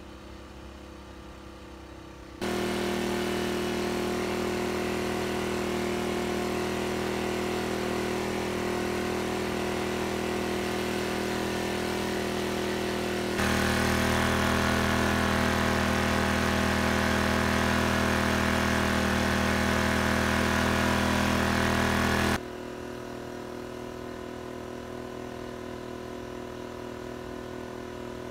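Sportsman GEN1000i inverter generator running with a steady hum, heard in several spliced takes at different distances. It is soft at first from 23 feet with no load, much louder from about two seconds in, loudest from about 13 seconds in with the meter right at the unit, then softer again near the end from 23 feet under a 500-watt load.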